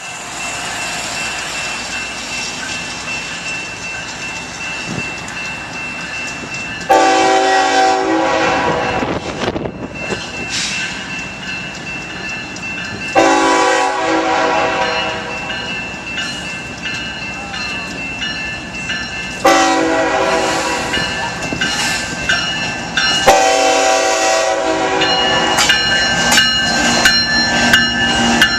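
Iowa Interstate Railroad freight locomotive approaching and sounding its horn in the grade-crossing pattern: long, long, short, long. Near the end the train's wheels start clicking over the rail joints as it draws close.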